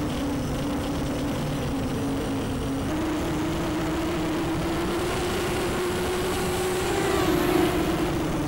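Racing quadcopter's brushless motors and propellers whining steadily over a rush of air noise. The pitch steps up about three seconds in, rises a little further, then drops near the end.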